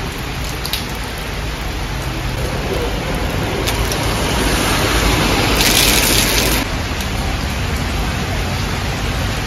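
Heavy rain pouring onto a wet street and stone pavement: a steady hiss of falling rain with drops splattering. Around six seconds in it grows louder and hissier for about a second.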